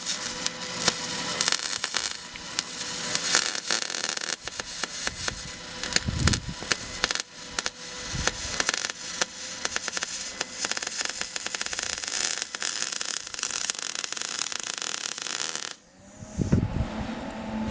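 Wire-feed welding arc crackling and spitting steadily for about sixteen seconds, then cutting off suddenly near the end as the bead is finished.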